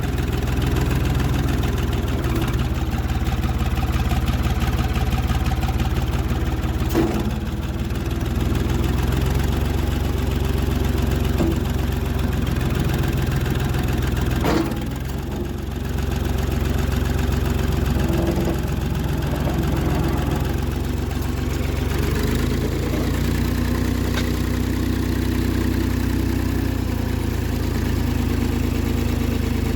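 Farm tractor engine running steadily while it warms up. There are a couple of sharp knocks about 7 and 14 seconds in, and the engine note changes about two-thirds of the way through.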